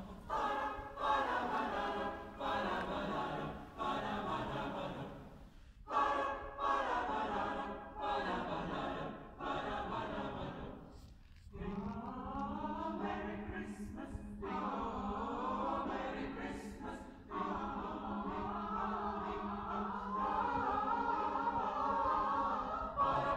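Choir singing in phrases, with short breaks about six and eleven seconds in, and a low note held underneath through the second half.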